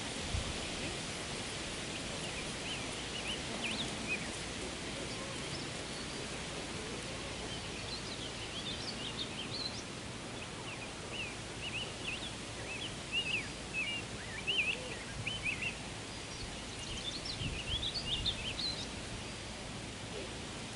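Birds chirping and singing in short, repeated phrases over a steady outdoor hiss of wind and rustling foliage.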